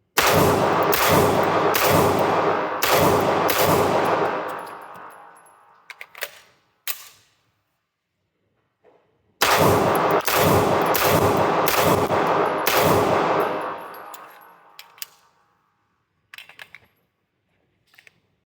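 SIG Sauer P226-X Legion SAO pistol fired in two quick strings of about six or seven shots each, roughly two shots a second, the second string starting about halfway in; each shot echoes. A few light metallic clinks come between and after the strings.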